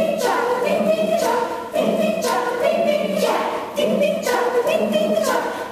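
Community choir singing a cappella in short repeated phrases of about two seconds, with brief breaks between them.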